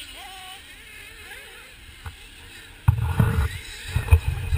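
Wind buffeting the camera microphone. It comes in choppy, loud low gusts that start suddenly about three seconds in.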